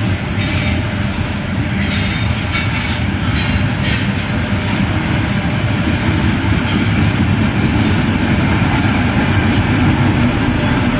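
Container freight train rolling past: a steady, loud rumble of steel wheels on rail, with several sharp clacks in the first few seconds.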